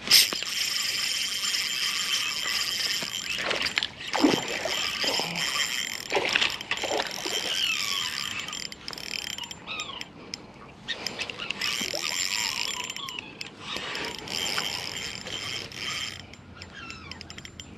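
Spinning reel being cranked, its gears whirring in several stretches of a few seconds with short pauses between, as a downshot rig is worked back. It opens with a sharp click.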